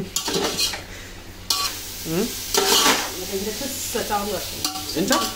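Vegetables for fried rice sizzling in a hot pan as they are stirred, with a spatula scraping and knocking against the pan. The sizzle gets suddenly louder about a second and a half in.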